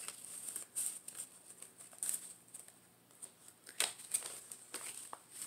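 Paper pages and flaps of a handmade journal being handled and turned: scattered soft rustles and light taps at irregular spacing, a few sharper ones past the middle.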